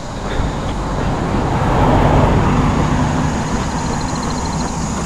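A car passing on the road, its tyre and engine noise swelling to a peak about two seconds in and easing off.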